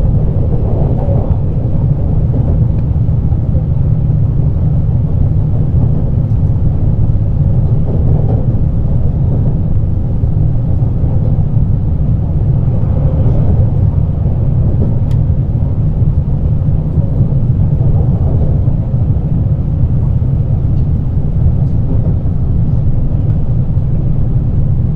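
JR Kyushu 817 series electric multiple unit running at speed, heard inside the passenger car: a steady low rumble of wheels on rail.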